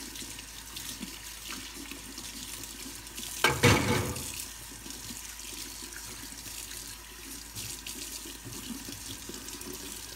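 Kitchen faucet running a steady stream of water onto plastic juicer parts being rinsed by hand in a stainless steel sink. There is a brief louder bump about three and a half seconds in.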